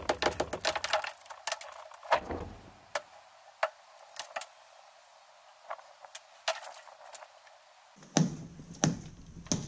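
Club hammer striking a hand chisel to chip pebbledash render and mortar out of a brick wall. A rapid run of blows comes in the first second, then scattered lighter knocks as debris falls away, a short lull, and three heavier blows near the end.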